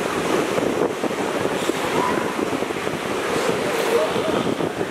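Steady surf and wind on the microphone, with a few brief wavering calls from the northern elephant seal colony about two seconds in and again near the end.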